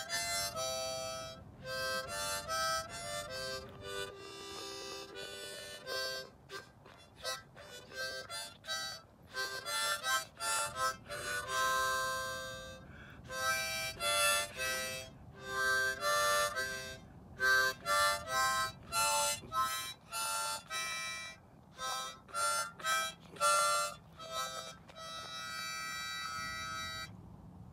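Harmonica played freely, with no set tune: short chords and single notes, puffed on and off with brief pauses, and now and then a chord held for a second or two.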